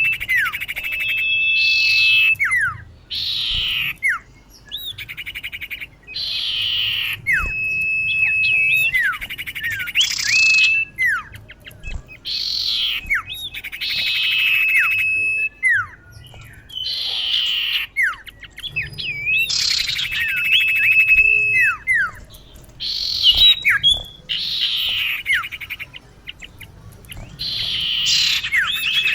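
Common iora (cipoh) calling, which is said to be a female calling to a male. It repeats short harsh chattering bursts mixed with quick falling whistles, and now and then holds a long, level whistled note.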